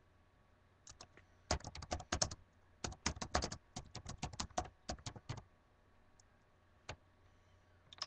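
Typing on a computer keyboard: a quick run of key clicks starting about a second in and lasting about four seconds, then one more click a little later.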